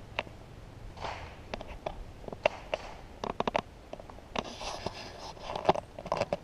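Irregular crunching and clicking of travel over a sandy dirt path: scattered sharp ticks, a quick run of four or five clicks about three seconds in, and short scraping rustles, loudest in the second half.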